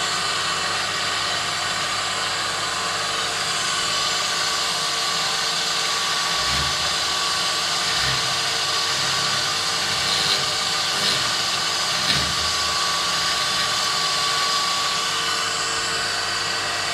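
Power drill running at steady speed, a 2 mm drill bit boring down into a broken M4 steel bolt in a throttle body. A few brief knocks come in the second half.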